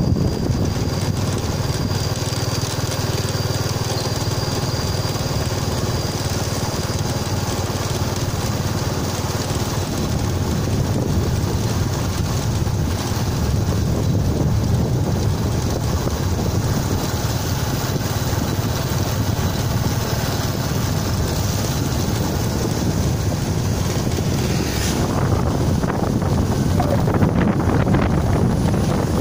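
Steady wind buffeting the microphone of a moving vehicle, over a low road and engine rumble.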